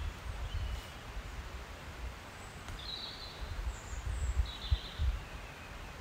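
Wind buffeting the microphone in uneven low gusts on open grassland. About halfway through there are a few faint, short, high chirps from small birds.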